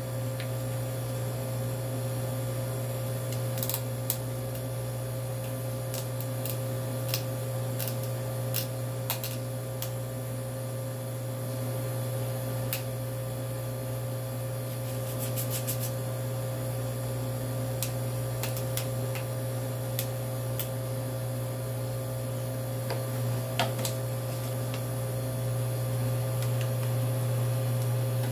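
A steady low electrical hum, with scattered light clicks and taps as a frozen phone and its metal mid-frame are handled and pried in gloved hands.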